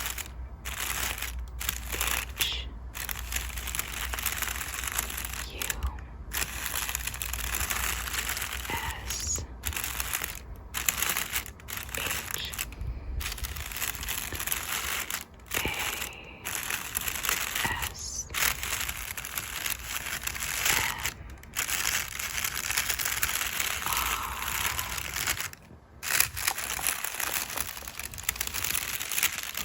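Makeup brush bristles brushed over crinkle paper: a continuous crinkly rustling, broken by many brief pauses between strokes.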